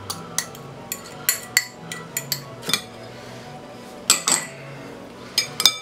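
Irregular clinks and taps of a metal fork and dishware against a glass mixing bowl, with a quick cluster of sharper clinks near the end.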